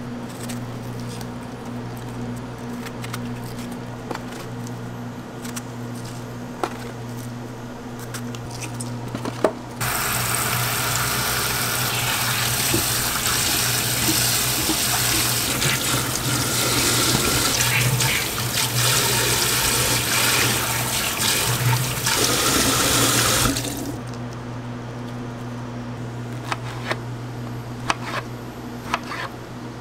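Tap water runs onto strawberries in a stainless steel bowl for about fourteen seconds in the middle, starting and stopping abruptly. Before and after it come light clicks of a knife hulling and slicing strawberries, over a steady low hum.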